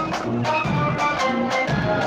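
Marching brass band playing: brass and saxophones carry a melody of held notes over a steady beat of bass drum, snare drums and cymbals.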